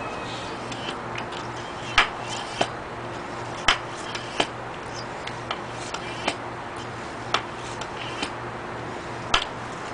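Hill high-pressure hand pump being worked to fill an air rifle tank, with an oak board used as a lever: sharp clicks and knocks come irregularly, about once a second, over a steady low hum.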